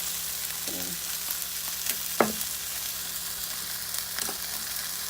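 Chicken feet sizzling steadily in hot oil in a frying pan, with a few sharp clicks, the loudest about two seconds in.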